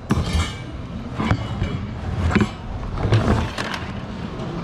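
Goods being rummaged in thrift-store bins: irregular knocks, clatter and rustling over a steady low rumble.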